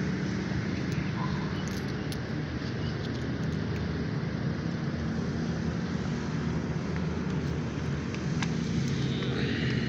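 Coins clinking faintly in a hand as they are sorted, a few small clicks, over a steady low rumble with a hum, like a running engine.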